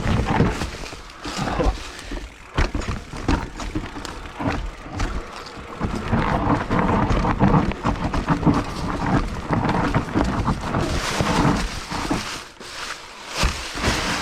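Mountain bike descending a rough, steep dirt trail: tyres grinding over dirt and roots, with rapid clattering of the chain and frame over bumps and wind rumbling on the microphone.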